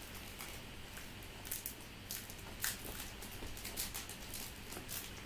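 Topps Chrome trading cards being slid and flipped one by one in the hands, giving irregular soft ticks and rustles of the glossy card stock, a handful of sharper clicks among them.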